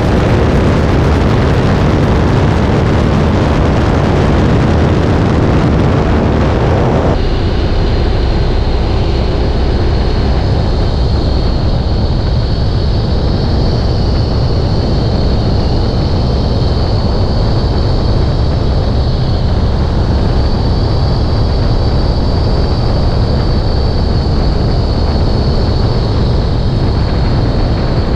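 De Havilland Tiger Moth biplane's four-cylinder inline engine running steadily in flight, mixed with heavy wind noise on the microphone. About seven seconds in, the high hiss drops away and a thin, steady high whine comes in above the engine.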